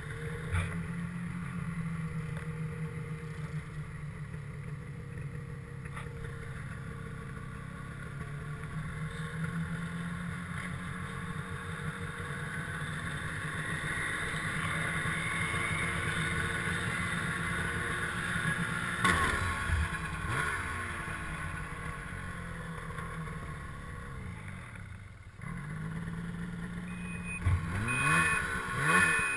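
Snowmobile engine running under way along a trail, its pitch shifting gently. It drops back briefly near the end, then revs up and down sharply several times, louder.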